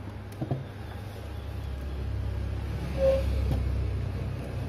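Low, steady engine-like rumble of a motor vehicle running nearby, growing slightly louder about a second in, with a few faint clicks.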